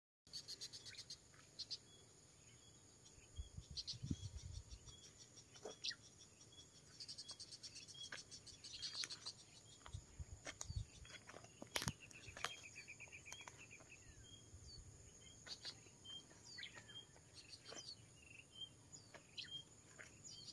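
Faint open-country ambience: scattered short bird chirps over a steady high insect buzz, with a sharp click about twelve seconds in.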